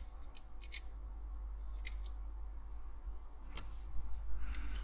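Small parts of a Corgi 247 Mercedes 600 Pullman die-cast model clicking and ticking as fingers work the plastic wiper mechanism and switch into its metal body: about half a dozen short sharp clicks at irregular intervals, over a steady low hum.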